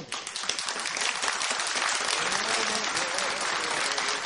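Audience applauding, a dense, steady clatter of many hands clapping, with a faint voice under it for a moment past the middle.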